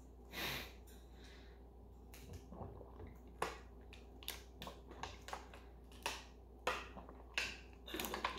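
A person drinking water straight from a plastic bottle: a string of irregular gulps and swallowing clicks, coming more often after the first few seconds.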